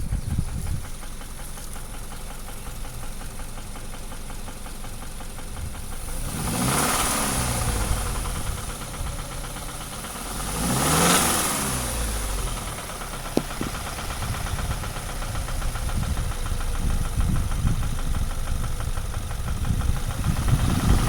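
Subaru FB20 2.0-litre flat-four engine idling with a knock, the fault the owner is documenting. It is revved twice, about six and eleven seconds in, each time rising briefly and falling back to idle.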